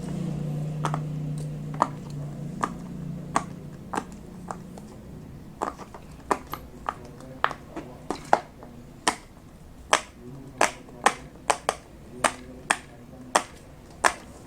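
Silicone pop-it fidget toy bubbles being pressed, each a short sharp pop. The pops are sparse at first and come faster, about one or two a second, from about halfway through.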